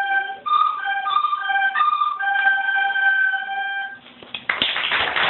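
A group of children play soprano recorders in unison: a simple melody of short notes ending on one long held note that stops about four seconds in. Audience applause breaks out just after.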